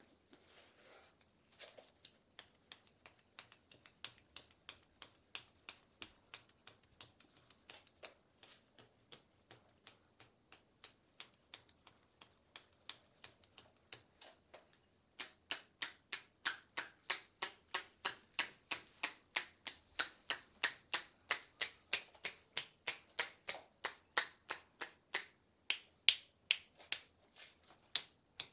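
Percussion massage: hands clasped palm to palm striking a person's legs in a steady rhythm of crisp claps, about two to three a second, growing clearly louder about halfway through.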